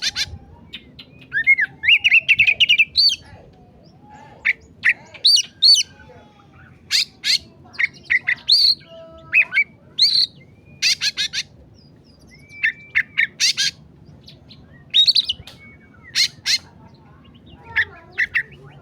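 Oriental magpie-robin (kacer) singing in an agitated ('emosi') mood: short, irregular bursts of whistled, gliding notes mixed with harsh, scratchy calls, separated by brief pauses.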